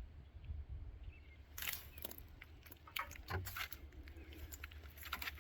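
Faint light clicks and rattles of small parts being handled, starting about a second and a half in and coming irregularly, over a low steady hum.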